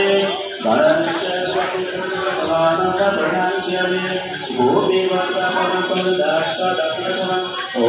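Hindu devotional singing, a mantra-like chant with a steady sustained tone beneath, accompanied by jingling percussion.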